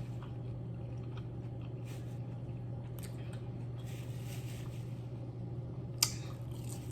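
Soft chewing and eating sounds of crab claw meat close to the microphone over a steady low hum, with faint scattered clicks and one sharp click about six seconds in.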